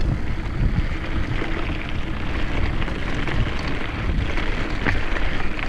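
Wind buffeting the microphone of a GoPro carried on a moving bicycle: a steady rumbling rush, with a few faint clicks over it.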